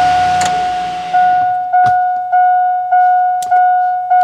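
Truck's dashboard warning chime ringing over and over, about once every 0.6 s, each ding a clear tone. A rushing noise fades out during the first second and a half.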